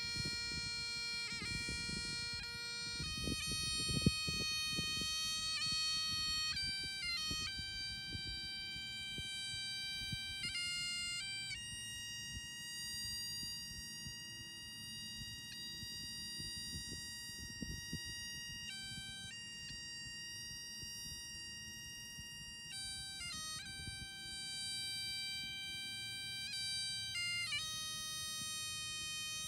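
Background music: a slow melody of long held notes, each changing after one to several seconds.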